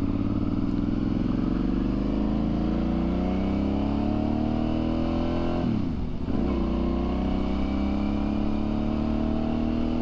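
2007 Suzuki V-Strom 650's V-twin engine, breathing through an aftermarket KTM exhaust, pulling up steadily in revs under acceleration while riding. About six seconds in the revs dip briefly, then climb again.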